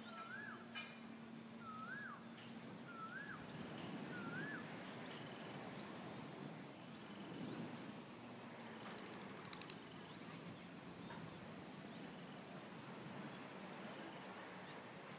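Outdoor ambience: a bird repeats a short rising-and-falling whistled call four times in the first five seconds, while other birds give scattered short high chirps over a steady faint hiss.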